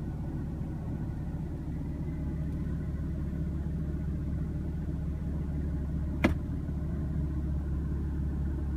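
BMW M3's twin-turbo inline-six engine idling steadily, heard from inside the cabin, with one sharp click about six seconds in.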